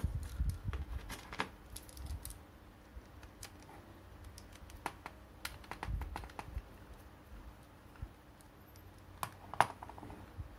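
Small screwdriver and a toy part being handled as a small screw is unscrewed: scattered light clicks and taps, a little busier in the first second or so, with a sharper click near the end.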